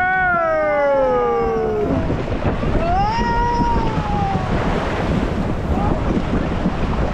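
Two long wordless vocal glides from a young child, each rising and then slowly falling in pitch, the second starting about three seconds in. Under them is a steady rush of wind noise on the microphone and splashing water from a raft ride.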